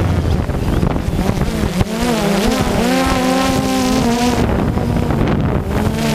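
Quadcopter drone's motors and propellers whining over a steady rush of noise, the pitch wavering up and down as it manoeuvres.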